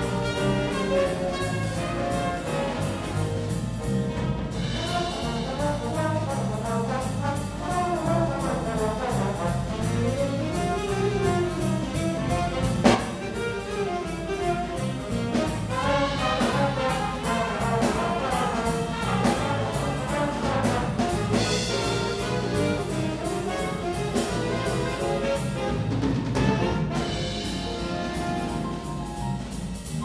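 Student jazz big band playing live: trumpets, trombones and saxophones over piano, electric guitar and drum kit, with one sharp accent hit about thirteen seconds in.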